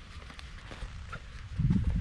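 Canvas bag and gear being handled and packed: muffled rustling and soft knocks, much louder from about one and a half seconds in.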